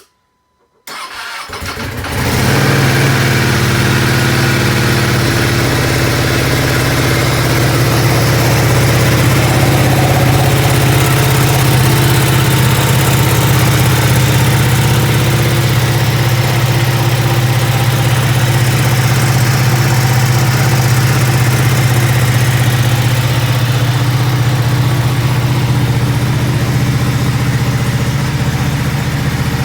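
2021 Ducati V2 with stock exhaust being started: the starter cranks about a second in, the engine catches within about a second, then settles into a steady idle.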